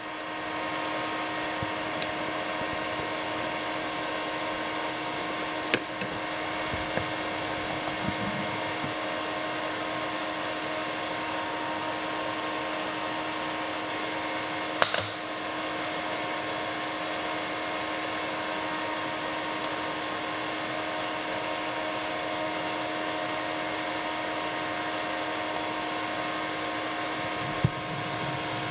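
Water boiling vigorously in a metal can heated by an induction heater's work coil, over a steady hum with fan-like noise. Sharp clicks come about six seconds in, around fifteen seconds, and near the end.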